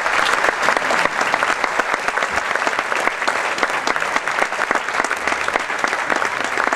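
Audience applauding steadily: many hands clapping, greeting a prize-winner being called out.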